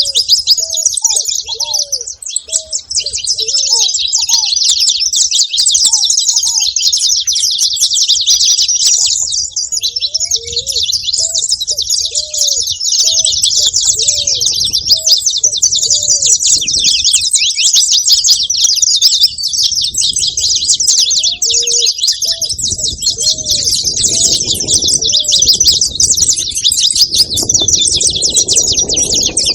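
Saffron finch singing without a break, a fast, dense run of high chattering and trilled notes. Underneath is a separate series of short, much lower hooked notes, and a low rumble comes in during the last third.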